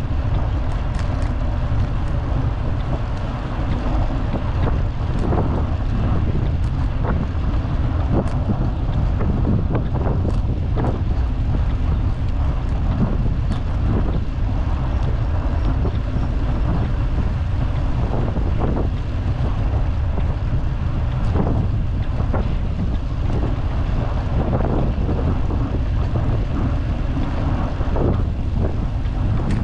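Wind buffeting the microphone of a handlebar-mounted GoPro on a moving vintage road bicycle, a steady low rumble, with frequent short knocks and rattles from the bike over the trail surface.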